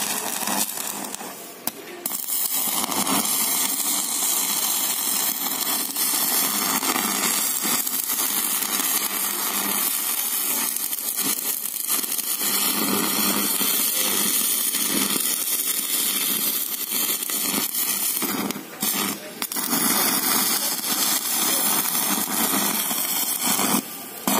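Stick-welding arc from a Great Yuva 200-amp inverter welding machine crackling and sizzling steadily during a test weld after its IGBTs were replaced. The arc breaks off briefly near 2 seconds and again around 19 seconds, then restrikes.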